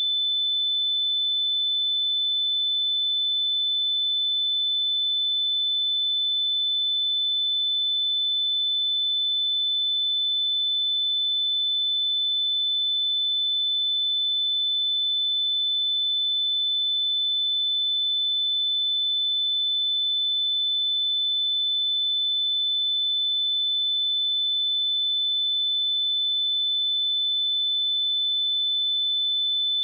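A pure 3514 Hz sine-wave test tone, one steady high-pitched pitch held at a constant level without a break.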